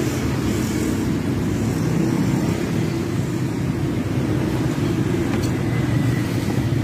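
A steady low background rumble, even and unbroken, with a faint light click about five seconds in.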